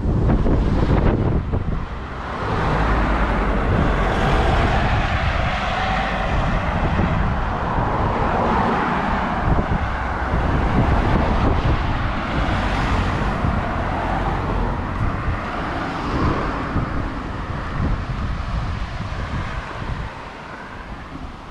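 Strong wind buffeting the microphone, an uneven low rumble under a steady rushing noise that swells and eases with the gusts.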